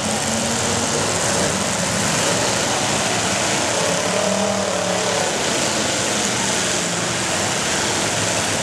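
Demolition derby cars' unmuffled engines running and revving together in a steady loud din, with one engine rising and falling in pitch about four seconds in.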